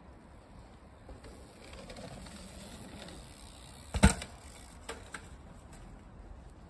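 Mountain bike rolling past on a dirt trail, its tyres making a soft noise that swells and fades, with a sharp knock about four seconds in and two lighter clicks shortly after.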